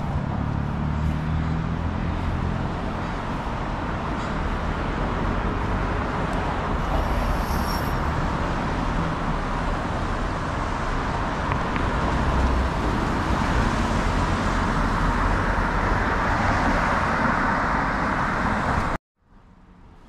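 Steady city street traffic: vehicles passing, with a low engine hum under continuous road noise. The sound cuts off abruptly near the end.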